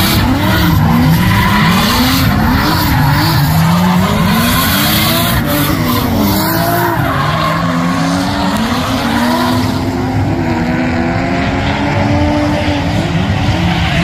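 Two drift cars sliding in tandem: their engines rev up and down again and again as the drivers work the throttle, over the steady screech and hiss of tyres spinning sideways on the asphalt.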